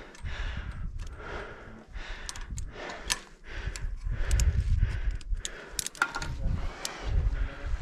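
A climber breathing hard in a steady rhythm of puffs, about one a second, from the exertion of a steep climb. Scattered sharp clicks and clinks, and gusts of wind buffeting the microphone, heaviest in the middle of the stretch.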